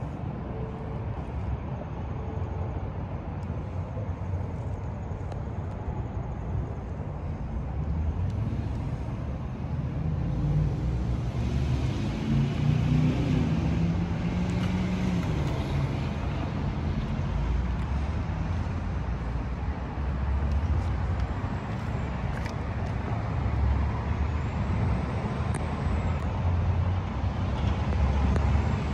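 A motorcycle's 900 cc parallel-twin engine, the Triumph Street Twin's, running at idle as a steady low rumble. Its pitch briefly rises and falls between about eleven and fifteen seconds in.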